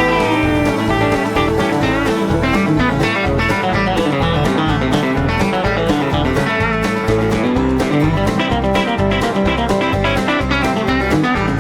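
Instrumental break in a country song: guitar strumming and picking over a steady bass beat.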